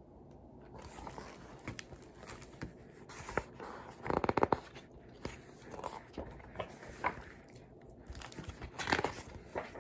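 Pages of a hardcover picture book being handled and turned: scattered paper rustles and crackles, with louder bursts about four seconds in and again near nine seconds.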